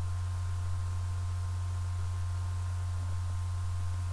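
Steady low electrical hum with a few faint higher tones above it, unchanging throughout.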